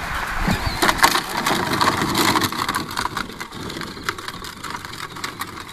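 Gravel crunching under the plastic wheels of a children's ride-on toy Jeep being pushed along: a dense run of small crackles that thickens about a second in and eases off near the end.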